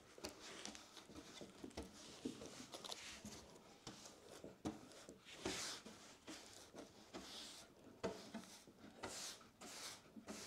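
Faint, irregular swishes of a paintbrush spreading white primer across a wooden tabletop.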